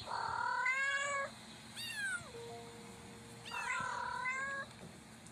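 Young kitten of about seven weeks meowing three times: two long drawn-out cries with a short falling one between them. It is the insistent crying of a frightened, separated kitten.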